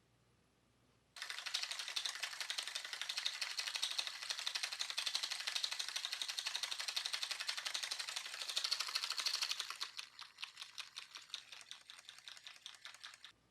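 Rapid mechanical tapping from a cat rump-patting machine: a fast, dense clatter of pats that starts suddenly, thins to slower, separate taps near the end, then cuts off abruptly.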